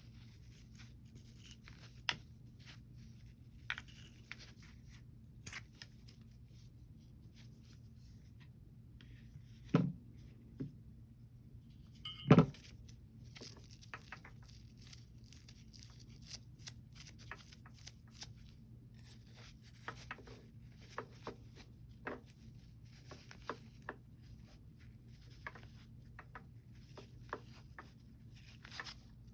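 Pistol parts and cleaning tools handled during cleaning: scattered light clicks and rustles, with two louder knocks about ten and twelve seconds in, over a faint steady low hum.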